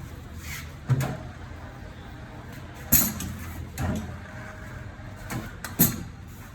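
Several sharp knocks and clunks, about five, at uneven intervals, from tools and parts being handled in a car tyre change.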